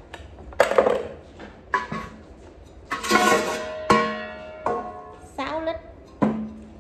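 Metal pressure cooker pot and its heavy lid clanking together, about seven knocks, each ringing briefly.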